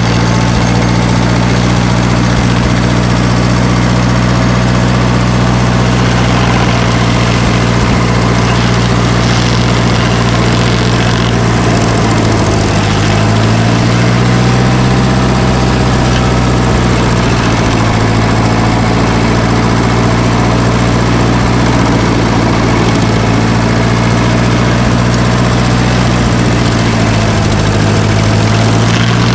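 A heavy machine's engine running steadily. Its pitch sags and recovers about halfway through and again near the end.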